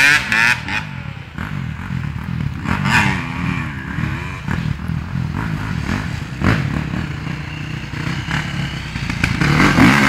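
Enduro dirt bike engines revving and easing off as the bikes ride away through the mud, with a few short knocks. Near the end another dirt bike comes close and its engine gets much louder.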